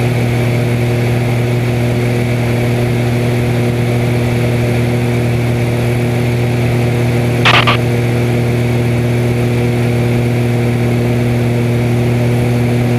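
Extra 300 aerobatic plane's six-cylinder Lycoming engine and propeller running at a steady cruise, a constant drone heard inside the cockpit. A brief crackle comes about seven and a half seconds in.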